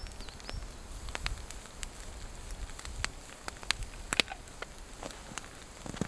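Wood campfire crackling, with irregular sharp pops and snaps.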